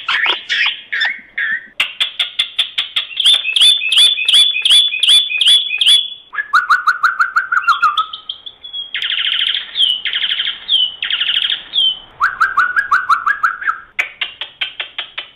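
Common (Indian) myna singing: fast runs of repeated sharp chirping notes, lower whistled phrases, and three short harsh rattles, each ending in a down-slurred note, in the middle.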